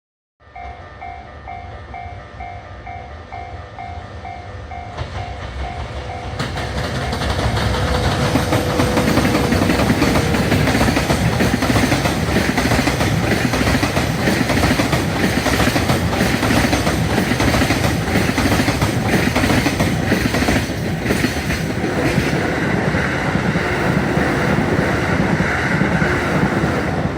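Japanese level-crossing warning bell ringing in a fast, steady pulse. From about six seconds in, a freight train hauled by a JR Freight EH200 electric locomotive passes close by: a loud rumble with wheel clatter builds up and holds, drowning out the bell.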